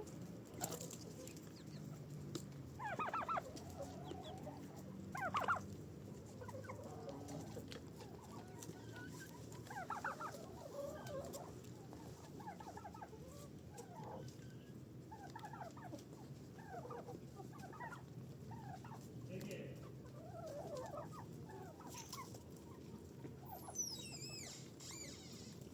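A flock of chickens clucking and calling in short bursts throughout, with louder calls about three and five seconds in, over a steady low background hum. A brief high squeak comes near the end.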